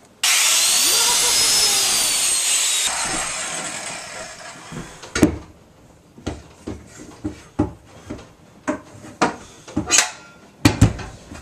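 Handheld circular saw motor switched on, running loud with its pitch rising and then slowly falling as it winds down over a few seconds. After that come a series of separate knocks and clunks, roughly one a second.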